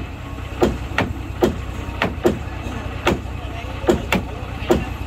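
Irregular hammer blows on the timbers of a wooden cargo boat, about nine strikes, some in quick pairs, each with a short ring. A steady low engine hum runs underneath.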